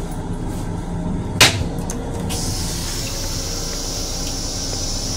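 A plastic toilet seat drops onto the stainless-steel bowl of an M7 railcar toilet with one sharp clack, over the steady rumble of the moving train. About a second later a steady hiss starts: the toilet's flush beginning.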